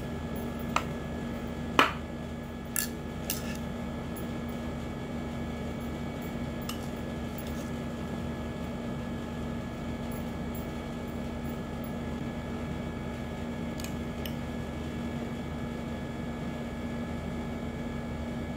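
A few short, sharp clinks of kitchen utensils against glass dishes, bunched in the first few seconds, the loudest about two seconds in, over a steady low hum.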